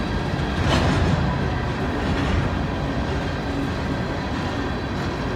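Empty aluminum-sided gondola cars of a long freight train rolling past, a steady rumble of wheels on the rails with a sharp clack about a second in.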